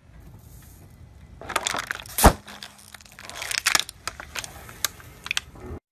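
A car tyre rolling over a full plastic water bottle. The plastic crackles, then gives one loud, sharp pop about two seconds in as the bottle bursts, followed by more crackling and crinkling as the tyre flattens it.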